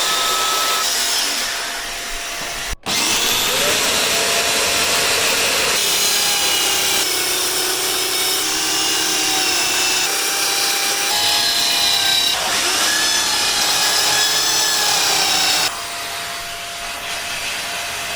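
Electric power saw cutting a worktop panel to a marked shape, its motor pitch wavering as the blade takes the load. It stops briefly about three seconds in and spins back up, and it quietens near the end.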